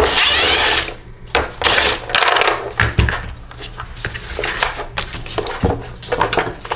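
Metal mower parts and hand tools being handled: scraping and rattling in the first few seconds, then scattered clinks and clicks.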